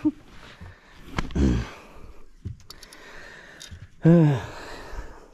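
A man's wordless sighs of disappointment at losing a hooked bass: a breathy one about a second and a half in, then a louder groan about four seconds in that falls in pitch. A few faint clicks come in between.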